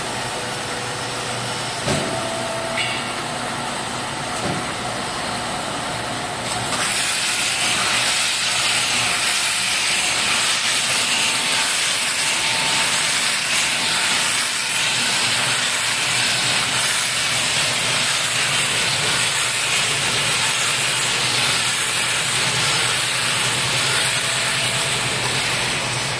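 Jummos Model 60 belt baler-wrapper running with a steady mechanical hum and a couple of knocks in the first few seconds. About six seconds in, a loud steady hiss joins and holds.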